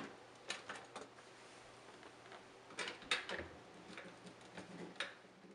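Faint scattered clicks and taps of hand work on a refrigerator's freezer evaporator as screws and wiring are handled, with a sharper click at the start and a small cluster about three seconds in.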